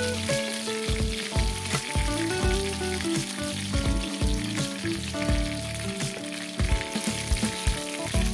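Hot oil sizzling steadily around lumpia-wrapped chilies (dynamite) frying in a pan. Background music with held, changing notes plays over the sizzle.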